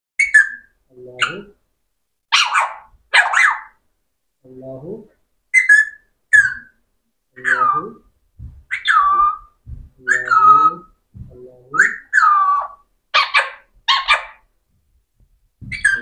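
Alexandrine parakeet giving a string of short, high whistles and squawky calls, several sliding down in pitch, alternating with low mumbled chatter like mimicked speech.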